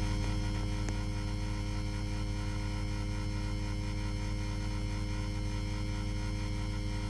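Ceiling fan running with a steady electrical hum.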